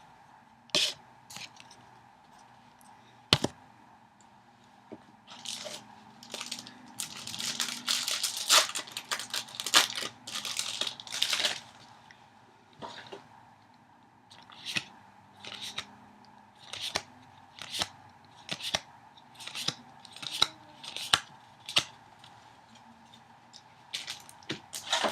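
A foil trading-card booster pack being torn open with crinkling, followed by a string of short sharp flicks about once a second as the cards are flipped through one by one.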